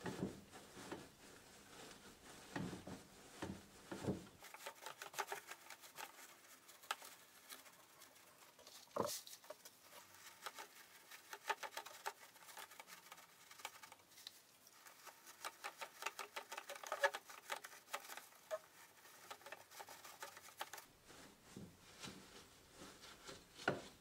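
Dry Afrik palm-fibre stuffing crackling and rustling as hands tease it apart and spread it over a chair seat, in many fine, irregular crackles.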